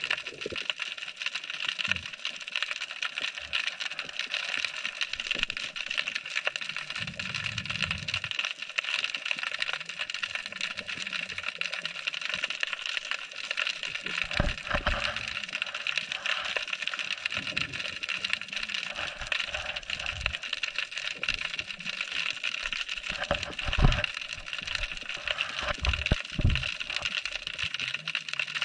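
Underwater crackle of snapping shrimp around a bridge piling: a steady, dense bed of fine clicking heard through the camera housing. A few low thuds come in the second half, the loudest near the end.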